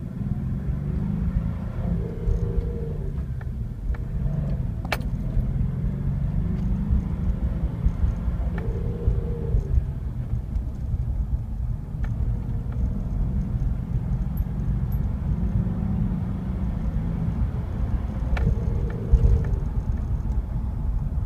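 A 2006 Nissan Xterra's 4.0 L V6 and manual drivetrain running on the move through several gear changes. A whir comes in three times, once during each shift while the revs hang with the clutch down. The noise appeared with a newly installed clutch, and a throwout or pilot bearing is the suspect. A few sharp clicks are heard along the way.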